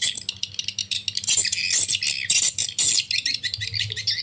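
Recorded swiftlet calls played through two horn tweeters from a Piro MW-88 swiftlet sound player: rapid, high twittering chirps without a break, over a steady low electrical hum.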